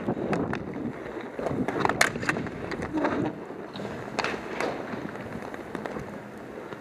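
Roller hockey play: inline skate wheels rolling on a hard rink floor, with sharp clacks of sticks and puck, the loudest about two seconds in. The sound dies down in the last couple of seconds.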